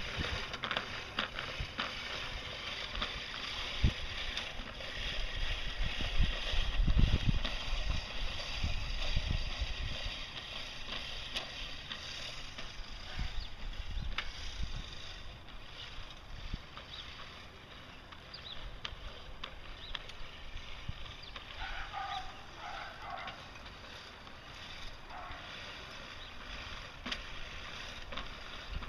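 Push reel lawn mower towed behind a recumbent trike, its spinning reel whirring and clicking as it cuts the grass. Gusts of wind buffet the microphone, strongest about a second in and again around seven seconds.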